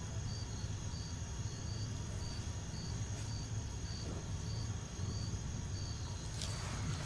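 Night ambience: a cricket chirping at an even rhythm, about two short chirps a second, over a low steady hum, with a few faint rustles near the end.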